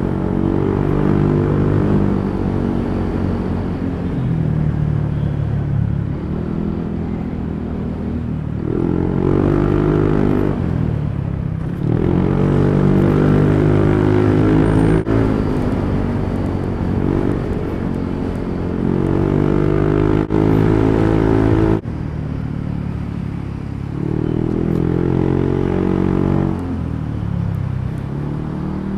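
Yamaha NMAX 155 scooter's single-cylinder engine running through an aftermarket JVT exhaust pipe while riding, its note rising and falling again and again as the throttle is opened and eased off.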